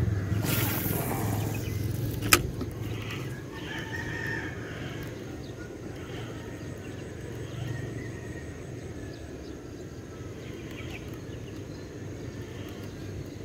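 A fishing rod is cast with a short swishing rush of air, then there is a sharp click about two seconds in. After that comes a steady low rumble of outdoor background while the lure is reeled back.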